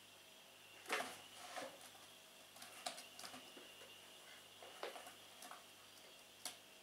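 A cat's claws raking and tugging at the sisal rope of a scratching post: a handful of short, scratchy rasps and taps, the loudest about a second in and a last sharp one near the end.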